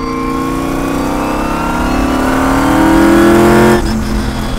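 Twin-turbo Ford Coyote 5.0 V8 accelerating hard, heard from inside the cabin. Its pitch climbs steadily for nearly four seconds, then drops abruptly near the end.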